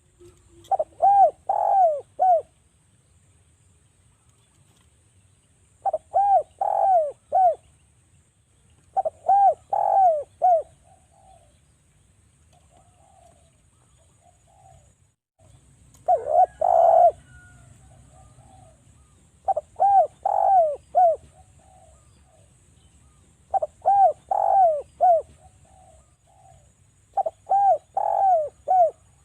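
Spotted dove (derkuku) cooing. About seven loud phrases of several quick, arched coo notes each, a few seconds apart, with softer coos in between.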